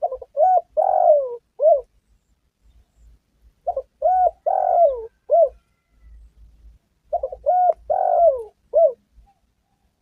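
Spotted dove (tekukur) cooing: three call phrases about three and a half seconds apart. Each phrase is a short run of coos, with one longer note that falls in pitch before a final short coo.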